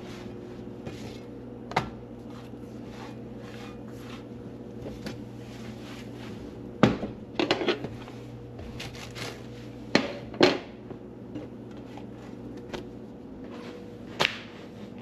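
Kitchen handling sounds: scattered knocks and clatters of dishes and utensils being set down and moved. The loudest are a quick cluster about seven seconds in and two knocks around ten seconds. They sit over a steady low hum.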